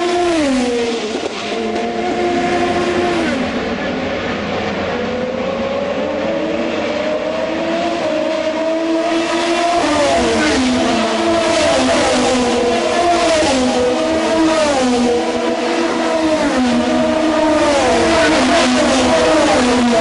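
IndyCar race cars' 2.2-litre twin-turbo V6 engines running on track, rising in pitch under acceleration, then dropping and climbing in repeated steps as the cars shift gears through the corners.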